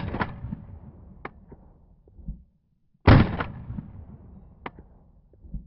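Two unsuppressed AR-15 rifle shots, one right at the start and one about three seconds in, each followed by a trailing echo that dies away over a second or two.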